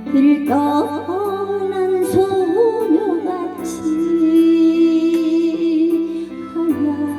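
Instrumental music of a slow Korean ballad: a lead melody line with sliding bends over sustained chords, with no sung words.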